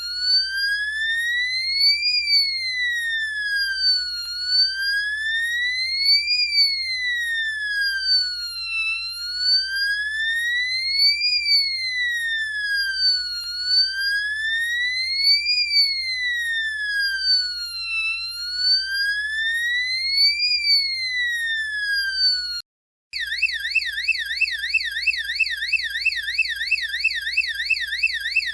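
Electronic siren of a flashing warning-light unit sounding the fire-engine wail tone, a slow rise and fall in pitch about every four and a half seconds. With about five seconds left it breaks off for a moment and switches to the police yelp tone, a rapid warble of about three sweeps a second.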